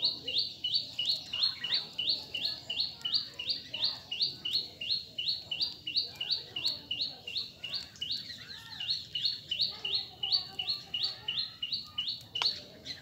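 Indian palm squirrel calling: a long run of short, high-pitched chirps repeated about three times a second, stopping near the end.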